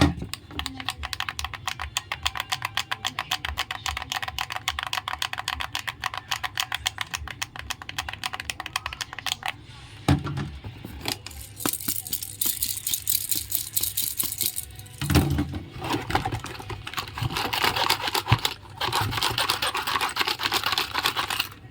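Small plastic toy pieces and packaging being handled: a fast, even run of light clicks for about ten seconds, then two long stretches of rustling, with a few soft knocks between them.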